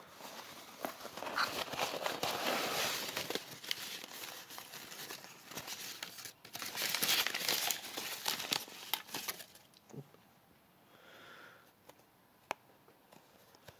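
Cardboard shipping box and paper packing being handled, a dense crinkling and rustling for about nine seconds. It then goes quiet, with a single sharp click near the end.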